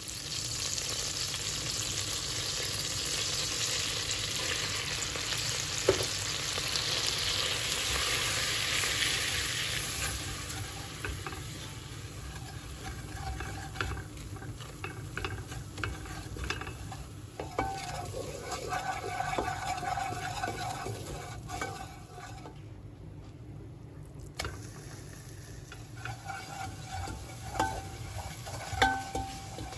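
Butter and flour sizzling in a hot pot while a wooden spoon stirs them into a roux, scraping across the pot bottom; the sizzle is loudest at first and then dies down. Near the end, tomato paste is stirred and fried in the fat, with sharp knocks of the spoon against the pot.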